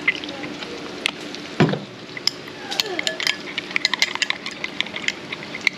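A spoon clinking and scraping quickly against a bowl while tomato sauce and mayonnaise are stirred into seafood sauce. The clinks come thick and fast from about two seconds in, over a steady sizzle of frying oil, with one louder knock just before.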